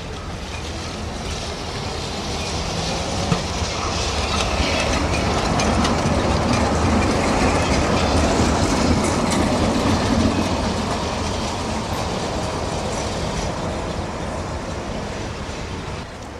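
Articulated tram rolling past close by, its wheels clattering on the rails; the running noise grows louder, peaks as the tram passes, then fades away. One sharp click about three seconds in.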